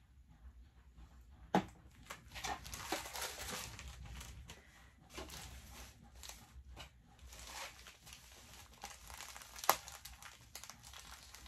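Plastic padded mailer crinkling as it is handled and pressed, with a couple of sharp snaps, the louder one near the end.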